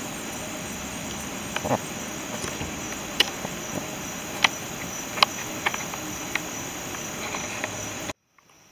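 Crickets trilling in a steady high chorus, with a few short sharp clicks and taps scattered through. The sound drops almost to silence near the end.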